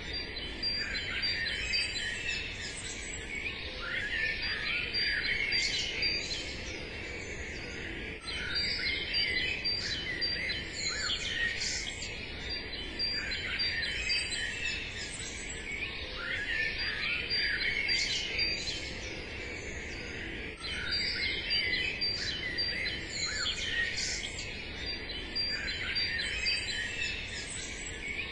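Many small songbirds chirping and singing at once, a dense, continuous chorus of short calls and trills over a steady low background noise.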